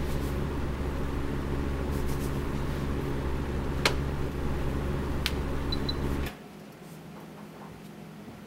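A steady electrical hum from an office appliance, with a light click twice, that cuts off suddenly about six seconds in as the appliance is switched off.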